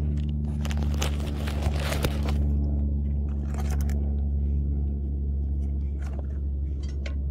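Outdoor air-conditioning condenser unit running with a steady low machine hum. Crunching and scraping handling noises come over it for the first couple of seconds and again briefly after about three seconds.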